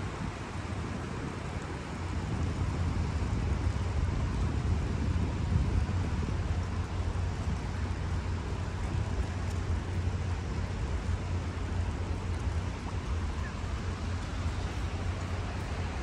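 Wind buffeting the microphone: a steady low rumble that grows louder about two seconds in, over a constant outdoor wash.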